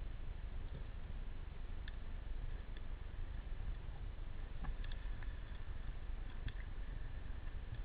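Muffled underwater ambience: a steady low rumble of water, with a few faint scattered clicks.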